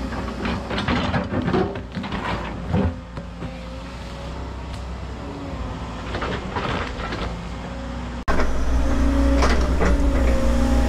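Volvo 140 excavator's diesel engine running steadily, with scattered knocks and cracks from the machine working rock and brush. About eight seconds in the sound cuts abruptly to a louder run of the engine.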